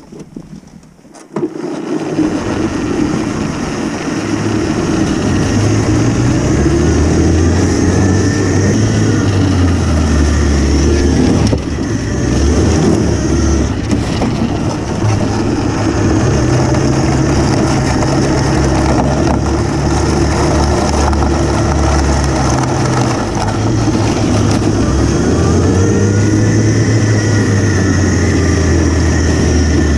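DIY electric snowmobile with an ME1115 motor pulling away and riding over snow. It starts about a second and a half in, then runs on as steady drive and track noise with a low drone that steps up and down with throttle, and faint rising and falling whine near the end.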